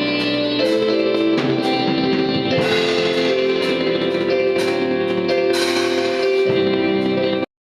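Music led by guitar, with steady rhythmic strumming. It cuts off abruptly near the end.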